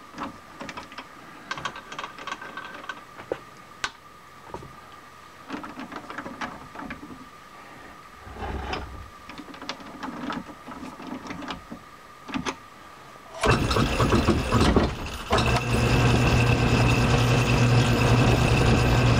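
Metal lathe: light metallic clicks and knocks as a part is fitted and tightened in the chuck. About thirteen seconds in, the motor is switched on and the lathe runs with a steady hum, the chuck spinning so a freshly turned point can be checked for running true.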